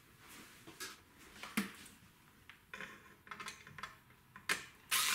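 Scattered light metallic clicks and clinks from tools and parts being handled while taking apart an electronics unit, followed near the end by a short, louder rushing noise that fades away.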